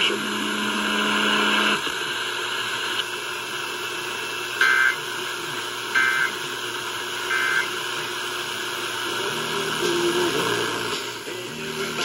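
Emergency Alert System end-of-message data tones playing through a clock radio's speaker: three short bursts of warbling two-tone digital data, about a second and a half apart, marking the end of the alert. Music starts up near the end.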